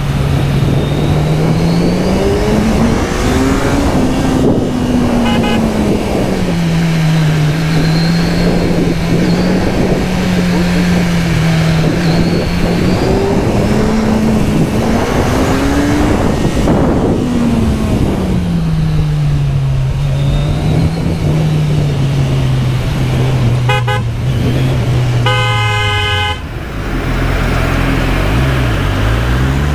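Kawasaki Z1000SX inline-four motorcycle engine running under way, its pitch rising and falling with the throttle, under steady wind rush. Short vehicle-horn toots sound late on, followed by one longer horn blast about four seconds before the end.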